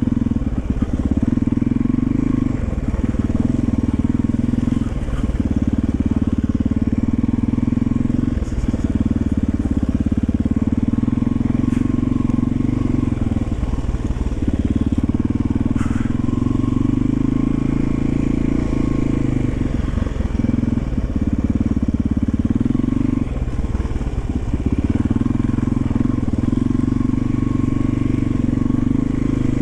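1991 Yamaha XT350's single-cylinder four-stroke engine running while the bike is ridden, its note dipping briefly every few seconds as the throttle is rolled off and back on.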